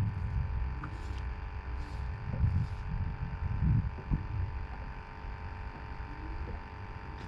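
Low, uneven wind rumble on the microphone over a faint steady hum, with a few soft swishes about one to three seconds in.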